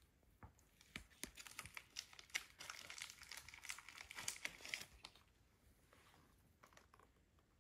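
Quiet crinkling and crackling of plastic packaging as a lamb-bone dog treat is taken out of it. It is densest for a few seconds, then dies away, with a few scattered clicks near the end.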